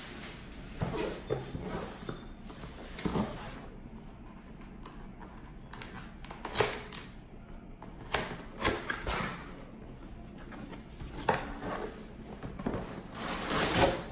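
Cardboard box being handled and opened: scattered light taps, scrapes and rustles of the lid and flaps, with a longer rustle near the end as the lid is lifted.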